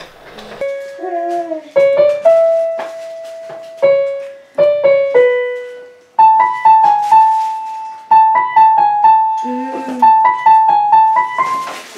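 Yamaha portable electronic keyboard played in a piano voice: a simple melody picked out note by note, slower and lower at first, then quicker and higher from about halfway.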